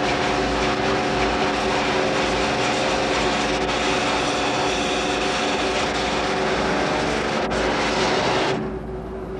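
High-pressure water lance spraying a diesel locomotive's underframe and bogie: a loud, steady hiss over a steady hum. The spray cuts off suddenly near the end, leaving the hum.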